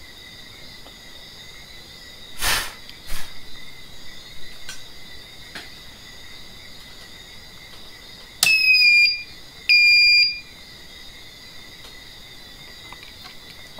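Power inverter's built-in buzzer giving two high electronic beeps, each under a second long, about a second apart, as the inverter powers up on a bench power supply. A couple of light clicks come a few seconds before the beeps.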